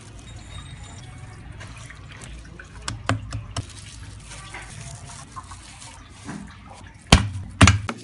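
Food prep at a counter: a few light taps and clicks, then two loud knocks near the end as a steel cleaver chops down onto a wooden cutting board.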